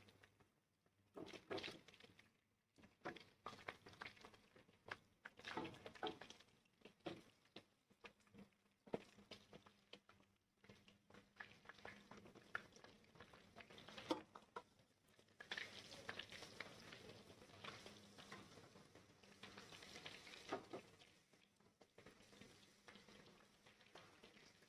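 Faint crackle of fried fish pieces in hot oil in a kadhai, with scattered light clicks and taps of a utensil against the pan as the pieces are lifted out. The crackle grows denser for several seconds past the middle.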